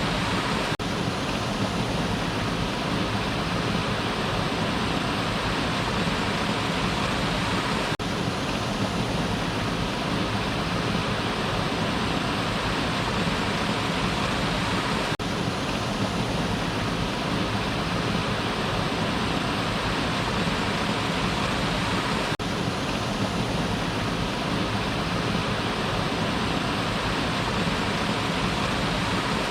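Waterfall water pouring and splashing in a steady, even rush, with a faint click about every seven seconds.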